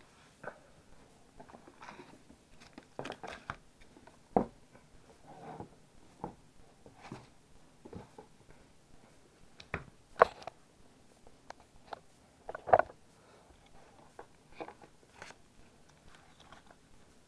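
Cardboard collector's boxes being handled and set in place by hand: scattered taps, knocks and light rustling, with three sharper knocks standing out.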